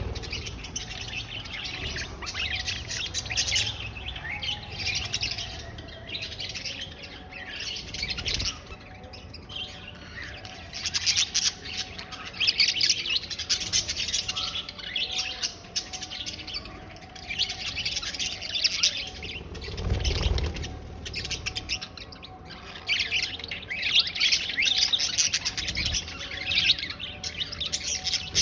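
Many small birds chirping and twittering rapidly, in spells of overlapping calls every second or two, with a few low thumps.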